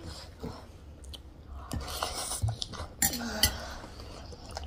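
Metal spoons and forks clinking and scraping on ceramic plates, with chewing of a soft, wet spicy chatpate. Two sharper clicks stand out about three seconds in.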